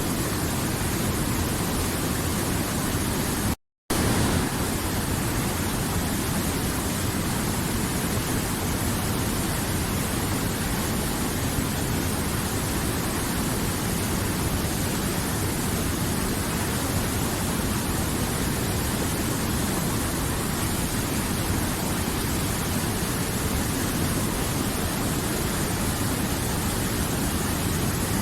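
River water rushing steadily, a dense, even rush with no pauses, broken only by a split-second gap of silence about three and a half seconds in.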